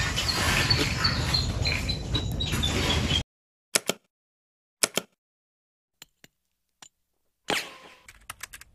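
Outdoor ambience with a regular series of short high chirps, about three a second, that cuts off abruptly about three seconds in. Then a few sharp clicks, a sudden whoosh and a quick run of clicks near the end: subscribe-button animation sound effects.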